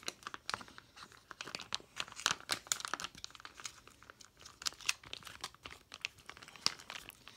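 A ready-meal mashed potato pouch being ripped open with the teeth and handled: a steady run of crinkling and tearing crackles.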